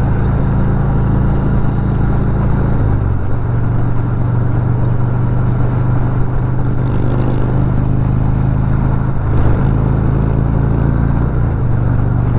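Harley-Davidson V-twin motorcycle engine running steadily at highway speed. Its note drops about three seconds in and rises again near the end.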